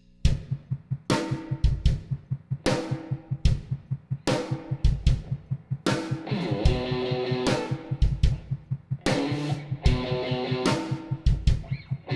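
Band music with a drum kit, bass and guitar playing a steady beat, with cymbal crashes every second or so. It comes in at full strength right at the start, after a quiet intro.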